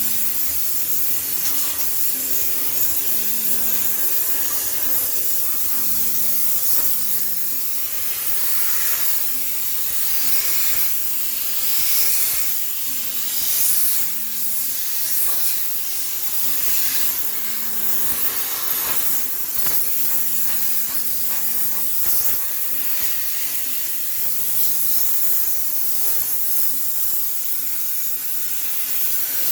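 High-pressure steam cleaner hissing steadily as it blasts steam to sterilise a washing machine, the hiss swelling and easing as the nozzle moves.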